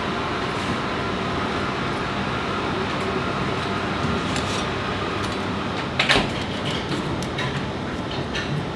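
Steady hum of bakery kitchen equipment, with one sharp knock about six seconds in and a few lighter taps after it: steel utensils (knife, ruler, dough cutter) set down on and knocking against the worktable while croissant dough is being cut.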